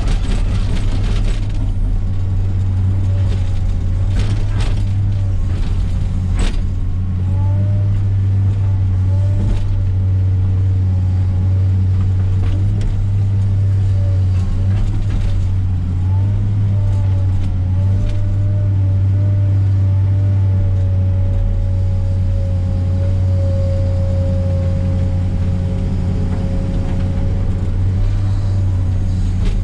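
Komatsu PC300 excavator's diesel engine running steadily under working load, with a wavering hydraulic whine that grows stronger in the second half. A few sharp knocks come in the first several seconds.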